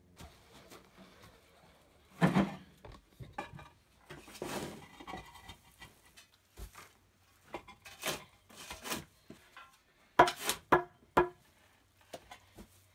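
Concrete pavers being set down and shifted into place, knocking and scraping against each other and the dirt in separate irregular clunks, with a quick run of sharp knocks near the end.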